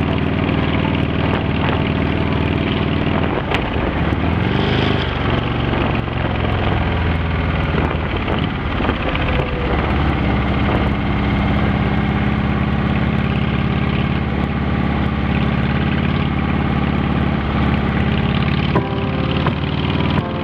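Motorcycle engine running steadily while riding along the road, its note shifting about four seconds in and again about ten seconds in.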